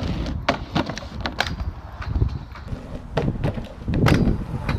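Inline skate wheels rolling over rough tarmac, with scattered sharp clacks and knocks and wind on the microphone. A louder noisy burst comes about four seconds in, around the jump onto the handrail.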